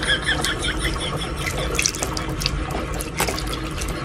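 Tap running into a bathroom sink, a steady splashing stream, with quick wet clicks as a cat drinks straight from the stream.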